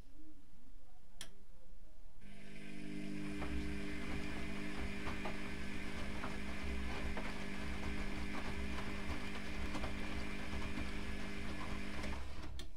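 Privileg Classic 30612 front-loading washing machine's motor turning the drum through a wash tumble, starting about two seconds in with a steady whine over a low rumble and scattered small clicks, then cutting off abruptly just before the end.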